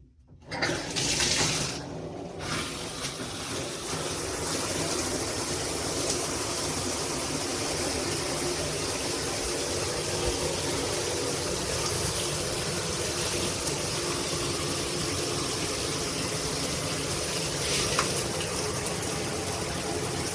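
Shower water turned on about half a second in, a louder gush at first, then spraying steadily from a GRICH 2-in-1 rain and handheld shower head.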